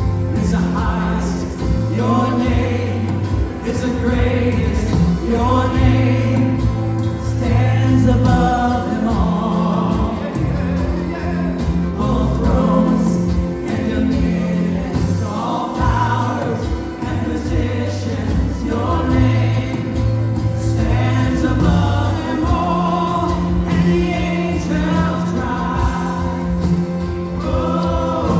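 Gospel worship song: a choir and congregation singing over a band with a steady bass line.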